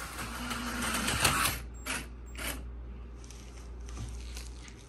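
Slot car running around the track, its small electric motor whirring, louder for the first second and a half, then two short surges about two seconds in before settling lower.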